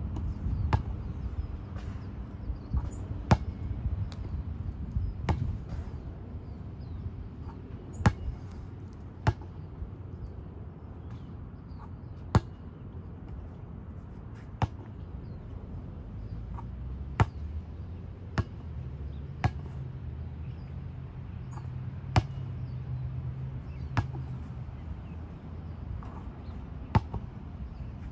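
Basketball bouncing on a hard outdoor court: single sharp bounces at irregular spacing, a second to a few seconds apart, over a low steady rumble.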